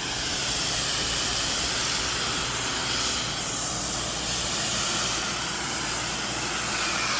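X-Jet nozzle on a pressure washer spraying: a steady, loud hiss of water spray with no breaks.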